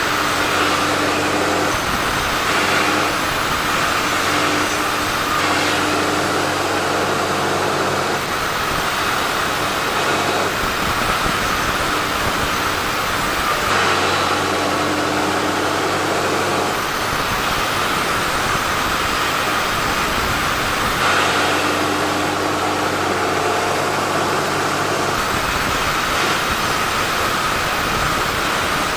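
Sawmill saw running and cutting teak logs: a loud, steady machine noise whose tone shifts every few seconds as the load changes.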